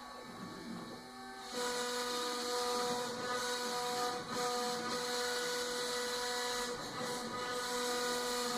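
Tatatronic TT1210 Rhino CNC router running, its motors giving a steady whine with a hiss of machining noise. It is quieter for about the first second and a half, then louder, with a couple of brief dips.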